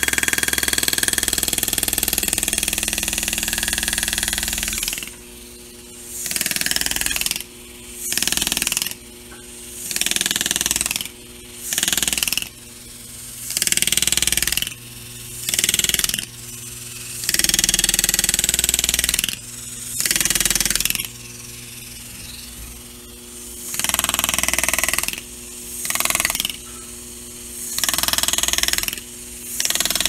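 Pneumatic engraving handpiece (air graver) buzzing as it cuts scrollwork into a polished metal door handle. It runs steadily for about five seconds, then in short bursts of about a second each with brief pauses between cuts, over a low steady hum.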